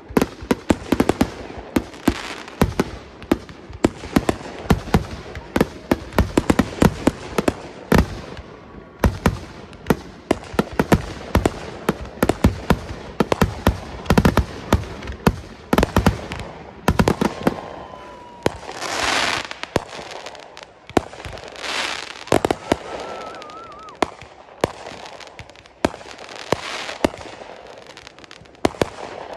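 Aerial fireworks going off in rapid succession, a dense string of sharp bangs and crackles. Past the midpoint the bangs thin out, and a few hissing whooshes lasting about a second each come through, along with a faint thin whistle.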